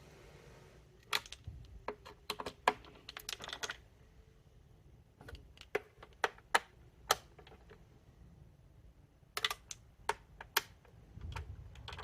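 Irregular small clicks and light knocks, in short clusters, of a screwdriver and hard plastic parts as screws are tightened down on a Dyson Cinetic cleaner head's plastic housing.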